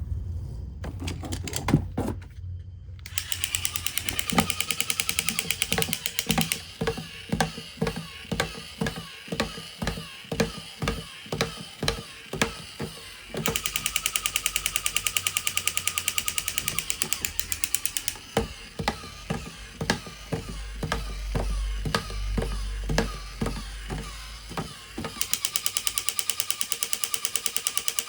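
Plastic toy vehicles being handled, with irregular knocks and several stretches of rapid, even clicking.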